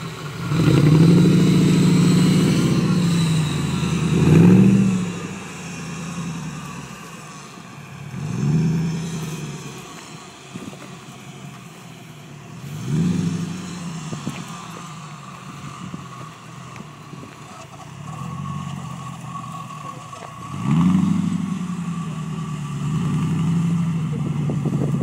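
Off-road trial buggy's engine revving hard in repeated bursts, about every four seconds, and dropping back to a lower run between them as the buggy crawls over rough ground.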